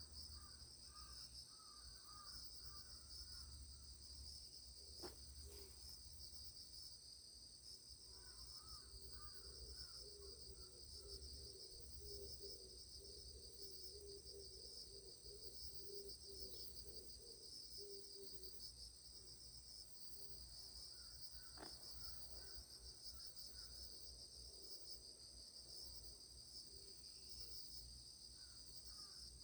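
Faint, steady chorus of insects chirring at a high pitch, with bird chirps now and then and a low pulsing call through the middle. Two sharp clicks come about five and twenty-two seconds in.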